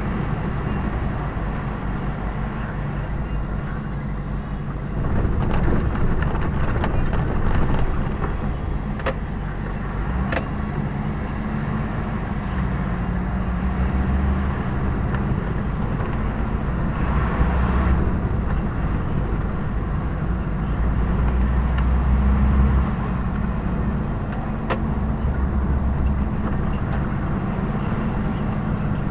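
Diesel engine of a 44-tonne semi-trailer truck running steadily while driving, heard from the cab, its low note shifting in steps, with a few sharp clicks and rattles.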